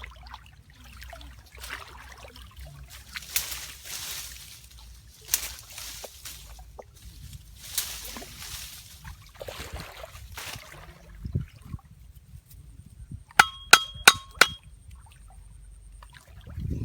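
Water splashing and sloshing in repeated short bursts. About three-quarters of the way through comes a quick run of five sharp, ringing clinks.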